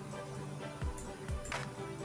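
Quiet background music with sustained tones and a soft beat.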